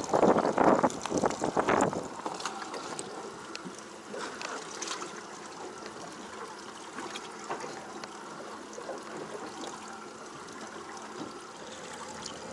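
Water trickling and splashing, louder for the first two seconds and then a soft steady trickle with a few light clicks.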